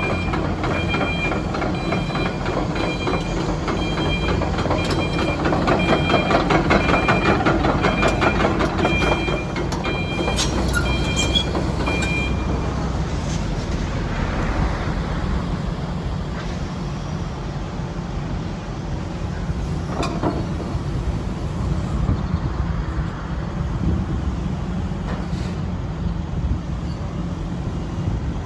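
Sany SY135C tracked excavator's Isuzu diesel engine running, with its steel track shoes clanking rhythmically as it travels and a two-tone travel alarm beeping steadily. About twelve seconds in, the beeping stops and the engine runs on at a steady pace.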